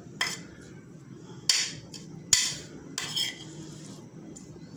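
Kitchenware clinking and knocking against glass, about four sharp clinks in the first three seconds, as a mixture of chopped turnip and sugar is transferred into a glass jar.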